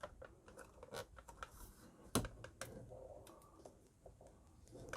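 Faint scattered clicks and taps of plastic parts being handled on a conical burr coffee grinder as its bean hopper lid is tried, with one sharper click about two seconds in and another near the end.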